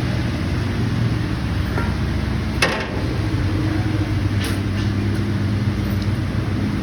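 A machine's engine running steadily, with a sharp metallic clank about two and a half seconds in and a couple of lighter knocks later.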